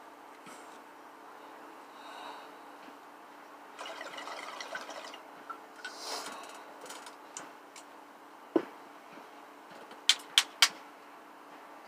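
A person breathing out bong smoke in soft, breathy exhales. About two-thirds in there is a single knock, and near the end three quick, sharp clicks.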